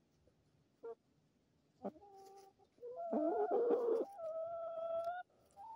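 Chickens clucking and calling: two short clucks, then longer drawn-out calls, the loudest and harshest about three seconds in, followed by a steadier held call and another just before the end.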